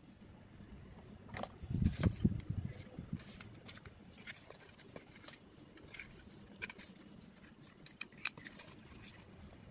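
Cardboard toy packaging being handled: a burst of soft thuds and scraping about two seconds in, as the cardboard insert comes out of the box. Then light scattered clicks and scratches as the wire twist ties holding the model car to the insert are worked loose.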